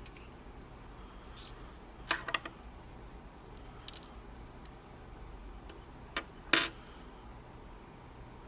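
Small metal parts of a Bricard Trial S dimple lock clicking and clinking as the lock is taken apart: a quick cluster of clicks about two seconds in, a few light ticks, then a louder metallic clatter about six and a half seconds in.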